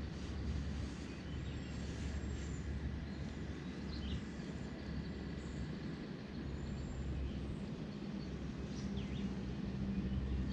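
Steady low outdoor rumble with a light hiss over it, and a few faint, brief high bird chirps.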